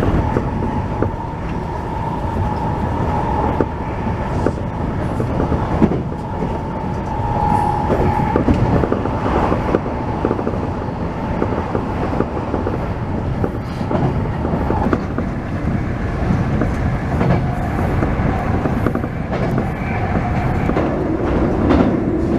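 Tokyo Metro Tozai Line train running at speed, heard from inside the car: a steady rumble with rail clatter and knocks, and a steady whine through the first half.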